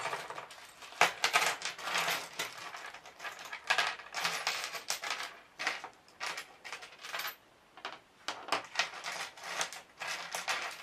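Hands rummaging through a stash of old jewellery and buttons: small hard pieces clinking and rattling against each other, with a brief lull about two-thirds of the way through.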